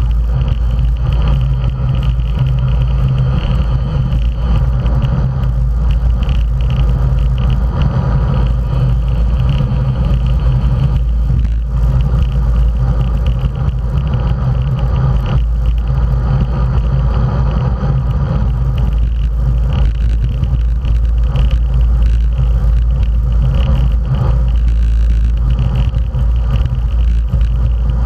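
Steady low rumble of wind buffeting the microphone of an action camera on a racing bicycle moving at speed in a road-race peloton, mixed with the hiss of road-bike tyres rolling on asphalt.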